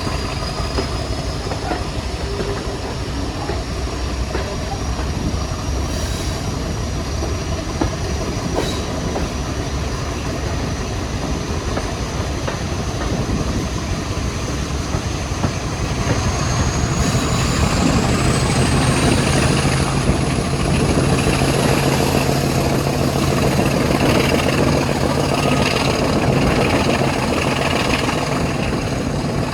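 Diesel locomotive running under power. About halfway through its engine note swells louder, and a high whistle climbs steadily in pitch.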